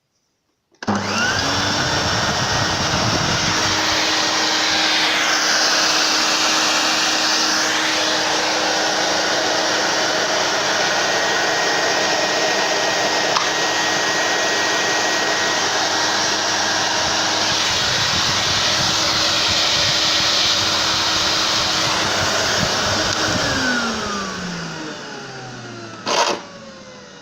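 Melissa 1400 canister vacuum cleaner (export version of the Zelmer 800) switched on about a second in and running steadily, a motor hum and whine over the rush of air. Near the end it is switched off and the motor winds down with a falling whine, followed by a short click.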